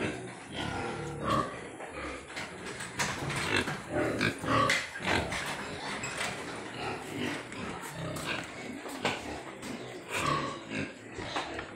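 Pigs grunting in short, irregular bursts, with scattered sharp knocks throughout.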